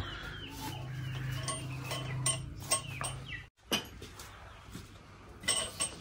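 Faint farmyard background: short scattered bird chirps and clucks with small clicks, over a low steady hum that stops about three seconds in.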